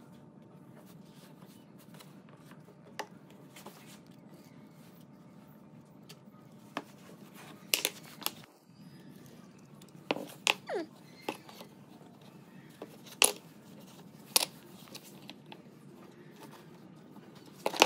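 Workshop handling noises: scattered sharp knocks and clicks, a dozen or so at irregular intervals, over a faint steady hum.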